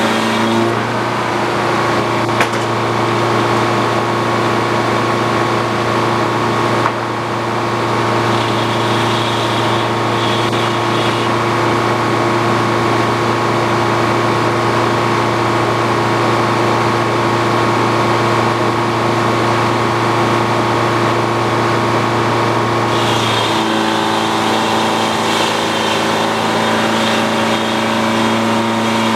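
Old Frick sawmill running steadily, its power unit and saw making a loud, even drone. The tone shifts just after the start and again about 23 seconds in.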